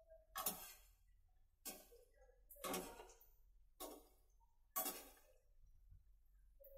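Quiet background music with a steady percussive beat, one sharp stroke about every second, and soft melodic notes between the strokes.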